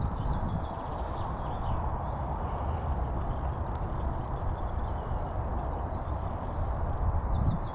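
Wind buffeting the microphone, a steady low rumble, with a few faint bird chirps about a second in.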